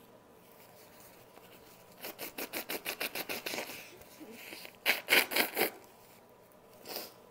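A person blowing their nose hard: a long fluttering blow of rapid pulses, then a second, louder and shorter blow, and a brief puff near the end.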